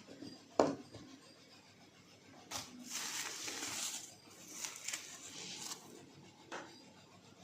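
Handling noises: a sharp knock about half a second in, then two stretches of scraping and a short click near the end.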